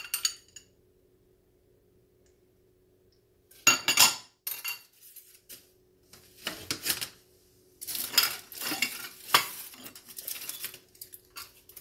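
Kitchenware being handled on a countertop: a metal spoon clinking against a small glass bowl and dishes being set down. There is one click at the start, then a quiet pause of a few seconds, then scattered clattering that grows busier toward the end.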